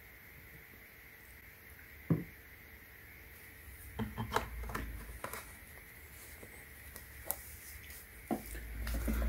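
Light clicks and knocks from handling a plastic oil bottle and an electric pole saw's oil reservoir: one sharp knock about two seconds in, a cluster of clicks and knocks around four to five seconds, then a few scattered clicks near the end.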